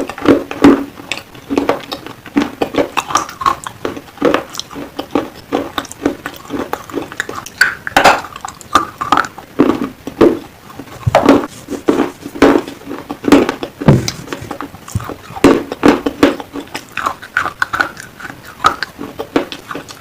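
Black slate pencils being bitten and chewed close to the microphone: many sharp crunches and cracks at an uneven pace.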